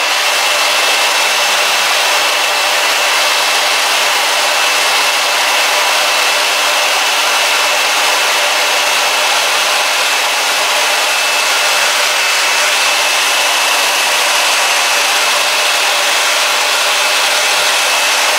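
Handheld hair dryer running steadily: a loud rush of blown air with a thin, high whine held over it.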